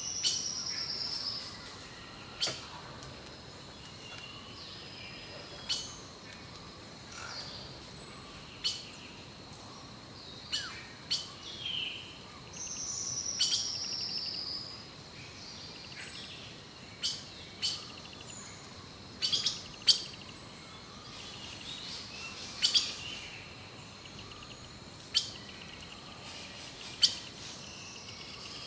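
Songbirds chirping with many short, sharp calls, and twice a falling trill lasting about a second and a half.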